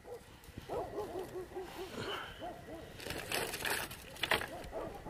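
Several distant dogs barking in quick runs of short barks. A small fire of dry ringal bamboo twigs crackles, most noticeably a little past the middle.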